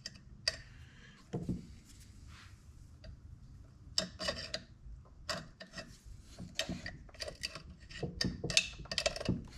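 Chainsaw parts being handled while the muffler shield and spark-arrester screen come off: a string of short clicks, taps and scrapes of small metal parts and a screwdriver, sparse at first and busier from about four seconds in.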